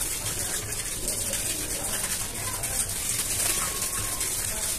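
Dry cement powder crumbling and sifting through fingers into a bucket: a steady fine hiss of falling grains and dust, with tiny crackles.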